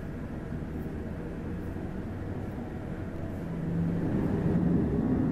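Low, steady rumble of a Boeing 737 airliner under pushback by a tow tug. A low hum rises and grows louder about four seconds in.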